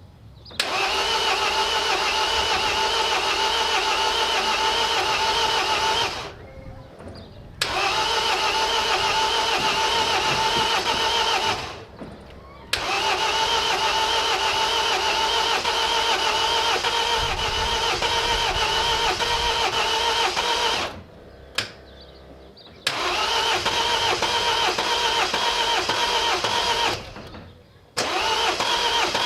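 Starter motor cranking the MINI R56's 1.6 HDi DV6 diesel engine in five long, steady attempts with short pauses between; the engine does not catch and run, as it won't start.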